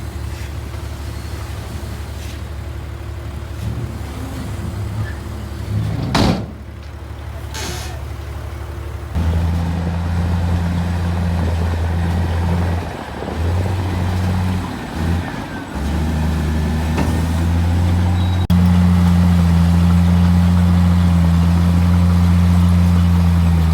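Heavy diesel engines of earthmoving machinery running, a low steady drone. About six seconds in there is a short burst of air hiss. From about nine seconds in the engine note grows louder and steadier, with a few brief dips, and steps up again near the end.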